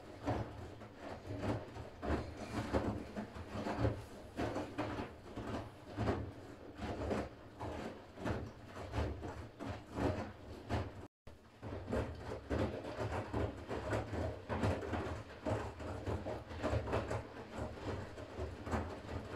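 Siemens iQ500 front-loading washing machine mid-wash on its shirts program: laundry tumbling in the turning drum, with irregular soft knocks and rubs over a low hum. The sound cuts out briefly about eleven seconds in.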